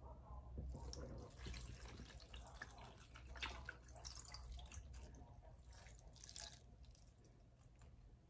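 Chicken broth pouring from a carton spout onto cabbage in a pot: a faint, uneven trickle and splash that fades near the end.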